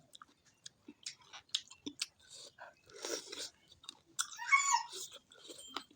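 Close-miked eating sounds of chicken and rice: wet chewing, smacking and small mouth clicks. A short pitched, whine-like sound rises and falls about four seconds in.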